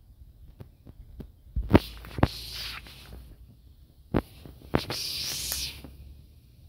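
Footsteps and handling knocks from someone walking with a handheld camera through garden undergrowth, with two short stretches of high hissing, about two seconds in and again near five seconds, the second ending abruptly.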